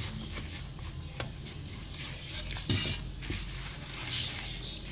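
A hand mixing water into dry atta (whole-wheat flour) in a plastic bowl: soft rubbing and scraping of the flour and dough against the bowl, with small clicks throughout and a sharper knock about two and a half seconds in.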